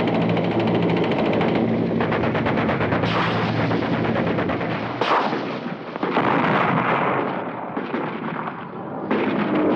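Rapid machine-gun fire over the steady drone of a helicopter. The firing eases off briefly near the end, then picks up again.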